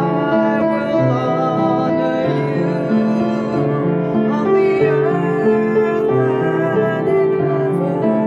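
Upright piano playing sustained chords, with a woman's singing voice over it.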